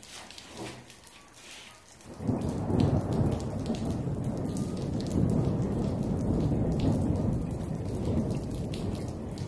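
Light rain with scattered drops ticking, then a long roll of thunder that starts suddenly about two seconds in and rumbles on, slowly easing.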